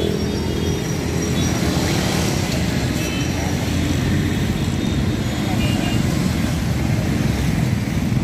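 Busy street traffic: cars, motorcycles and auto-rickshaws running past, a steady engine rumble with a few short high tones.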